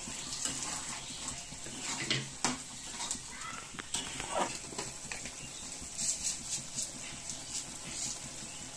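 A thick prawn and colocasia-leaf curry sizzling and bubbling in a metal kadai, with a metal spatula scraping and clinking against the pan as the prawns are stirred in.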